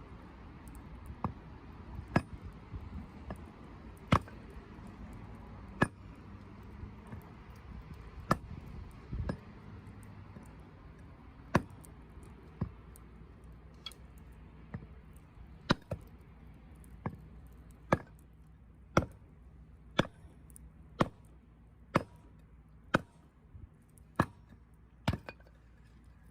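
Wood campfire crackling, with sharp pops and snaps coming roughly once a second over a soft steady background.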